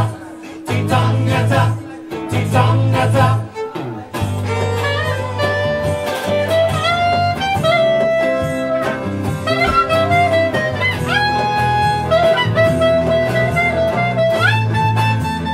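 Live acoustic band playing an instrumental break: for about four seconds only the strummed guitar and bass pulse, then a clarinet enters with a lead melody of held notes and upward slides over the band.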